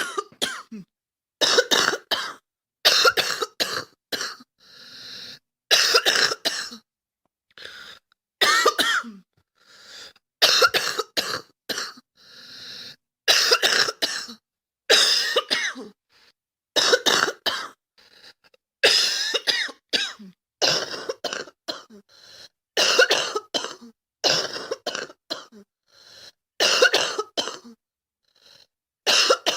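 A girl coughing over and over, in short bouts of two or three sharp coughs every second or two, with quieter breaths drawn between some of the bouts.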